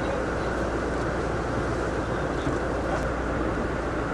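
Boat engine running steadily with a low, even drone.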